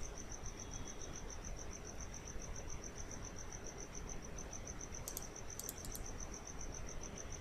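Quiet background hiss with a faint high-pitched chirp repeating evenly, about five times a second, and a few soft clicks about five seconds in.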